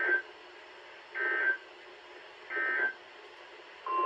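NOAA Weather Radio SAME digital data sent as three short screeching bursts about a second apart, the length of an end-of-message code closing the weekly test. Just before the end a steady single-pitch tone near 1 kHz starts, like the 1050 Hz weather radio warning alarm tone.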